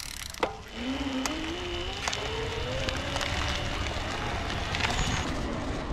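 Carrera Vengeance E e-bike's rear hub motor kicking in on high power assist: a whine that rises in pitch for about two seconds, then holds steady. Beneath it is the low rumble of the bike riding on a dirt track.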